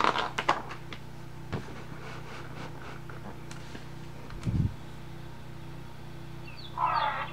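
Pages of a large hardcover picture book being turned by gloved hands: rustling and clicks at the start, then a few light taps, over a steady low hum. A low thump comes about four and a half seconds in, and a brief noisy burst near the end.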